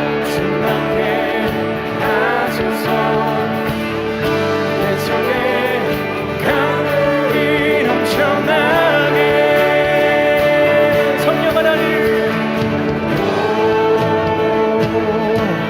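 Contemporary Christian worship music: a sung vocal line with vibrato over sustained instrumental accompaniment.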